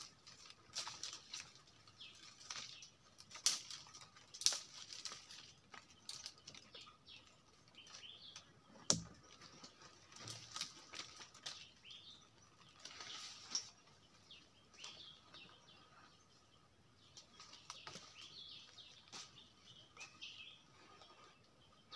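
Faint, scattered clicks, snaps and rustles of a man climbing through tree branches in rubber boots, with one sharp snap about nine seconds in. Birds chirp now and then.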